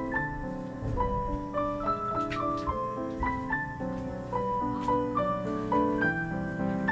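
Background music: a melody of short, evenly stepped piano notes over sustained chords.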